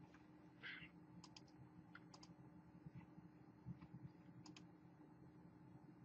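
About ten faint, irregular clicks from computer input at a desk, over near-silent room tone.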